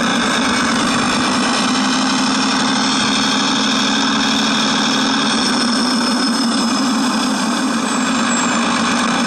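Digital locomotive sound unit playing a simulated diesel locomotive engine through a small speaker, held steady at throttle notch four, full revs, a loud, even engine drone.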